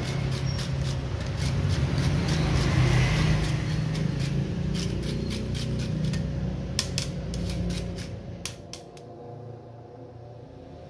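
Green banana being grated on a small metal box grater, scraping strokes at about three a second that stop about nine seconds in. Under it runs a steady low hum that fades out about eight seconds in.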